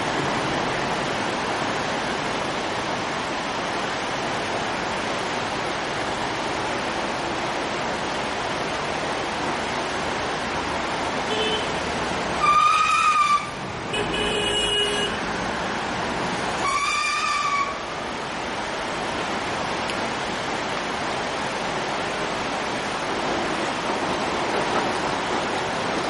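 Steady rush of white-water rapids around an inflatable raft. Two short, high-pitched toots sound about four seconds apart, just past the middle, with another brief tone between them.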